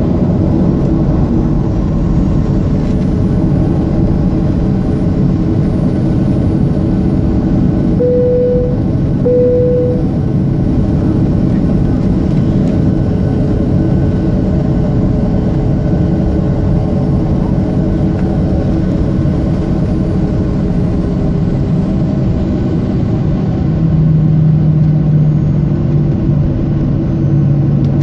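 Cabin noise of a Boeing 737-600 taxiing: a steady rumble and hiss of its CFM56 engines at idle and the air conditioning, heard inside the cabin. Two short cabin chime tones at the same pitch sound about eight seconds in, a second and a half apart, and a low steady hum joins near the end.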